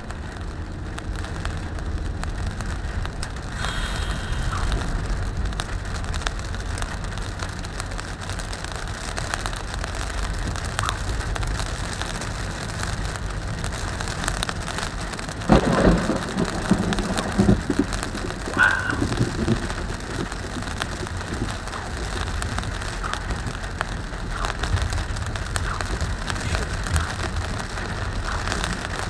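Steady rain on a car's windshield while the car drives along a wet road, heard from inside the cabin. About halfway through, a sudden loud thunderclap from a nearby lightning strike, rumbling for about four seconds.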